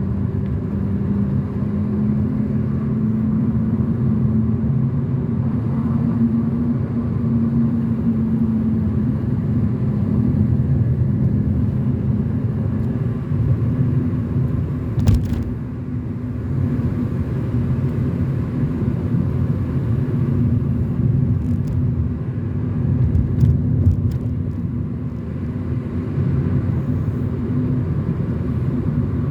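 Car driving along a mountain road: steady engine drone and tyre noise, with a single sharp knock about halfway through.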